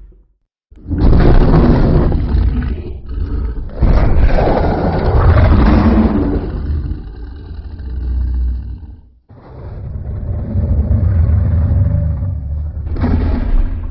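Designed Godzilla-style monster roar sound effect, the classic Godzilla roar layered with added eerie sounds: a series of loud, deep, drawn-out roars, the longest about five seconds, each breaking off abruptly, with a shorter roar near the end.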